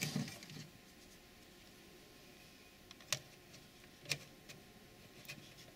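Handling noise as a small digital camera is pressed onto a PVC tube held in a lathe chuck: a brief rustle at the start, then three sharp clicks about a second apart.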